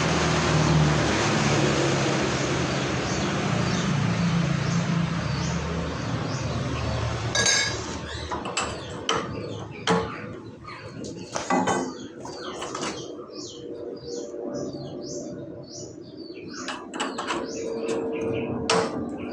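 A steady rushing noise for the first several seconds, then sharp metal knocks and clinks, several times, as metal parts are handled. High short chirps, like birds, run through the second half.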